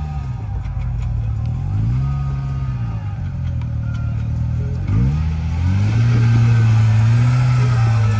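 Side-by-side UTV engine revving: two short swells of throttle that rise and fall back, then a sharp rise about five seconds in to a steadier, louder, higher-rev run under load.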